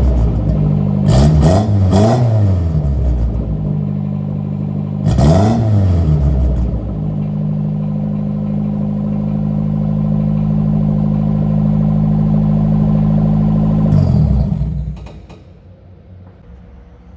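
1974 Dodge Colt's four-cylinder engine running through a newly built exhaust: revved three quick times, then held at a steady idle, and switched off about fifteen seconds in.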